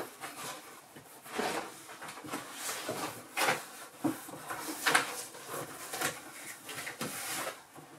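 A large cardboard box rustling, scraping and knocking as a person climbs inside and pulls its flaps shut from within, with several sharp knocks among the scraping.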